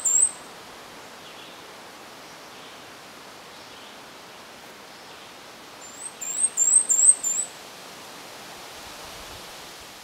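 Cape May warbler singing: two short phrases of very high, thin, repeated notes, one at the start and another about six seconds in, over a steady background hiss.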